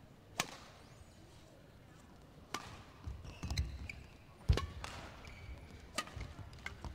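Badminton rally: rackets strike the shuttlecock four times, about every one and a half to two seconds. Footsteps thud on the court between hits, with a few short shoe squeaks.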